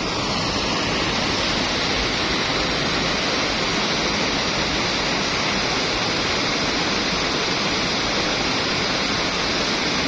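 Muddy floodwater pouring over a small weir, a steady rushing of falling water.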